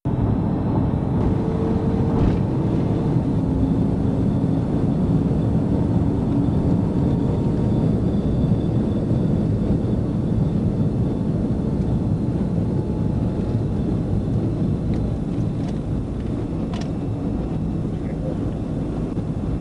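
Police patrol car driving at about 100 mph during a pursuit: steady engine, tyre and wind noise, heavy in the low end, easing off slightly near the end as the car slows.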